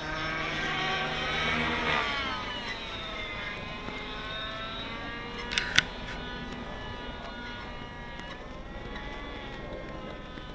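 Nitro RC helicopter's glow engine and rotors whining high overhead, the pitch sliding down about two seconds in and wavering as it manoeuvres. Two sharp clicks come about five and a half seconds in.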